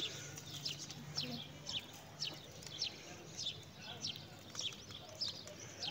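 Small birds chirping over and over: short, high, falling chirps, about two or three a second. A faint low hum runs under them for the first second or so, then stops.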